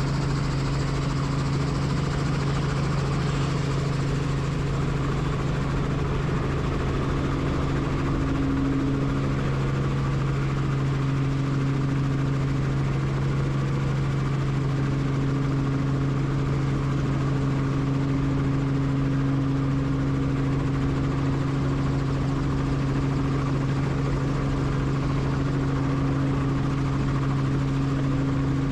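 Helicopter running steadily: a constant low hum with a fainter steady tone above it, over a wash of engine and rotor noise.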